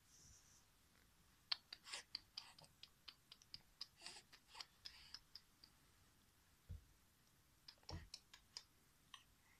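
Near silence broken by faint small clicks and ticks in two irregular runs, one through the first half and a shorter one near the end.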